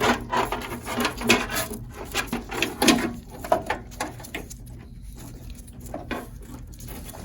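Power supply cables being dug out from the wiring inside a desktop PC case: a run of quick clicks, taps and rustles as the plugs knock against the case and each other, thinning out after about four seconds.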